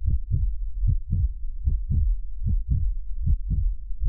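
Deep, heartbeat-like thumps in pairs, each pair about 0.8 seconds after the last, forming a steady pulsing beat on the soundtrack.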